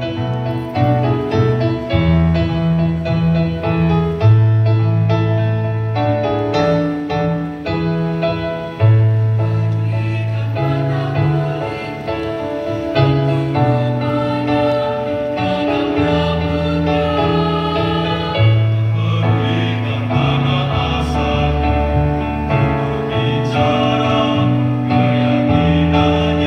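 Mixed choir of men and women singing in harmony, with held chords that change every second or two.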